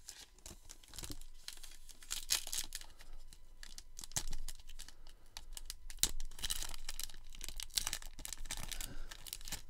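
A sealed trading-card pack wrapper crinkling and tearing in repeated scratchy bursts as fingernails pick at it; the wrapper is proving hard to open.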